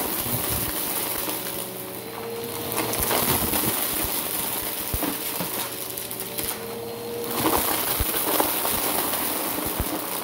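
Bissell Power Force Helix upright vacuum running on carpet, its motor humming steadily while small hard debris crackles and clicks as it is sucked up through the nozzle.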